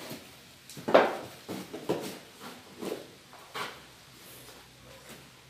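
A plastic container scooping loose potting soil from a box: about five short scraping scoops, the loudest about a second in.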